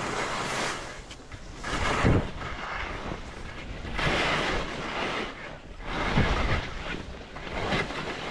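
Skis carving turns on packed snow: a scraping swish that swells about every two seconds with each turn, over wind rushing across the camera's microphone.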